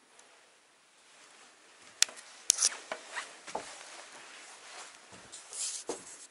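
Footsteps and handling noise in an empty wooden house: two sharp clicks about two seconds in, then scuffs and knocks.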